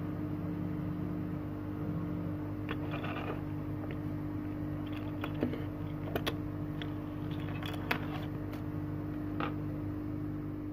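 Light clicks and taps as a phone circuit board is handled and a multimeter probe is touched to it, a handful of separate ticks spread over several seconds, over a steady low hum from bench equipment.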